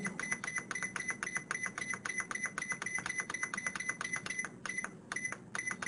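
Gourmia GTA2500 air fryer's control panel beeping rapidly, about six short high beeps a second, as the time button is pressed over and over to step the cooking timer up to 30 minutes. The beeps thin out into a few scattered ones near the end.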